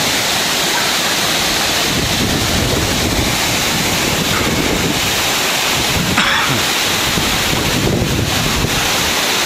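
Loud, steady rush of a waterfall heard close up, with wind buffeting the microphone.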